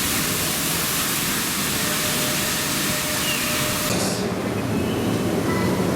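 A loud, steady hiss like spraying water or escaping steam, which stops abruptly about four seconds in, leaving a lower rumbling background noise.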